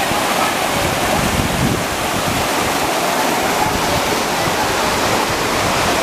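Rocky stream cascading over boulders in small white-water drops: a steady, loud rush of water.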